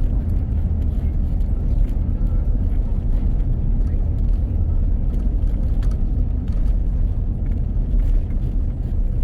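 Steady low rumble inside a moving vehicle, with a few faint ticks and knocks over it.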